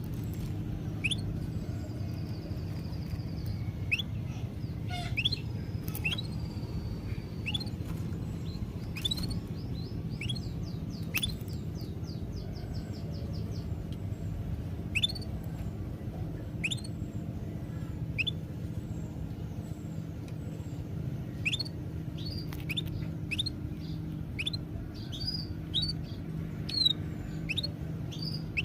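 Small birds chirping, with many short, quick upward-sweeping calls scattered throughout and a rapid trill in places. Under them runs a steady low hum.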